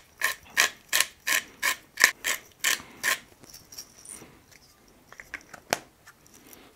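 Hand pepper mill grinding peppercorns, a crunchy ratcheting rasp about three strokes a second, about ten turns, stopping about three seconds in. A few light clicks follow as the mill is handled.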